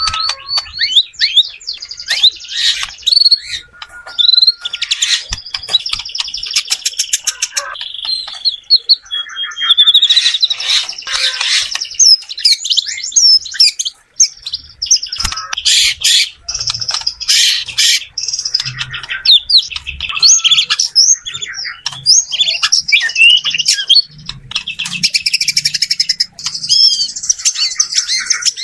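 White-rumped shama singing a loud, varied, nearly continuous song of clear whistles, fast trills and rapid rattling note series.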